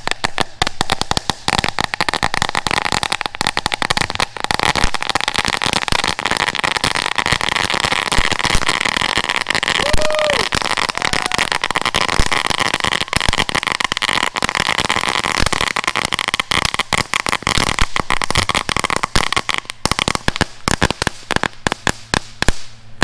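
A crackling firework (a 'crackling crawfish') burning inside an upright tube: a dense, rapid crackle of tiny pops over a hiss of spraying sparks, thinning out near the end.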